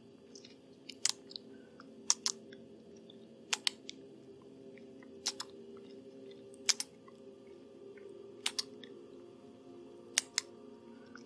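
Close-up ASMR mouth sounds: wet lip smacks and clicks made right at the microphone, mimicking a vampire biting and drinking, often in quick pairs every second or two. A faint steady hum runs underneath.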